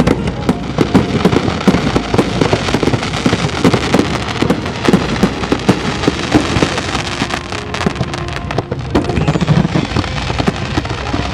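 Fireworks going off in a dense, continuous barrage of sharp cracks and bangs.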